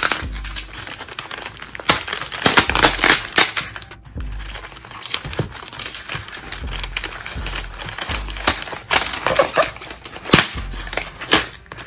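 Thin plastic bag crinkling and crackling as it is pulled off a BB pistol and the gun is lifted out of its styrofoam packing tray. The crackling comes in bouts, busiest about two to three seconds in and again from about nine seconds.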